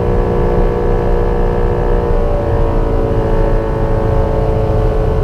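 Light aircraft's piston engine and propeller running steadily at taxi power over a heavy, rough low rumble. This is the metal grinding and vibration heard while taxiing, which the owner suspects comes from low main landing gear oleo pressure.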